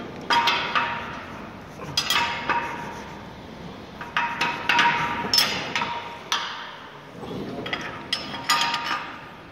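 Metal tools and pipe-coupling hardware clanking and clinking in several short bursts. Some strikes leave a brief metallic ring.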